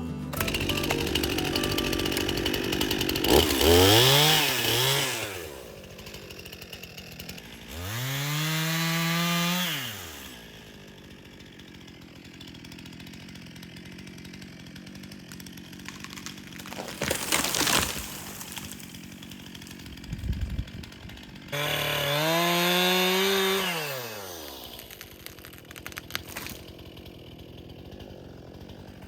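Stihl MS 261 C-M two-stroke chainsaw idling and revved up and down several times: two quick blips, then two longer revs that rise and fall back to idle.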